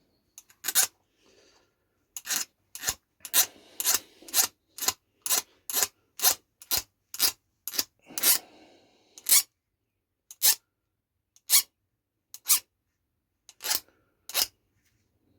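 Hand file from a chainsaw sharpening kit rasping across the steel point of a blunt wood drill bit, sharpening its cutting edge. Separate short strokes come about two a second at first, then more slowly with pauses toward the end.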